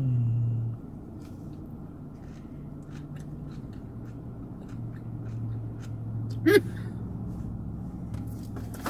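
Quiet chewing and small clicks from people eating takeout food, over a low steady hum. A short hummed tone at the start and a brief rising squeak about six and a half seconds in.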